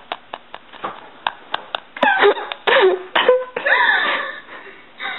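A girl shrieking with laughter as she is tickled: short high squeals that fall in pitch, in bouts from about two seconds in, after a stretch of small clicks and knocks.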